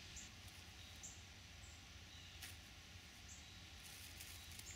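Near silence: faint background with a few short, faint high chirps spread through, a single click, and a brief soft rustle near the end.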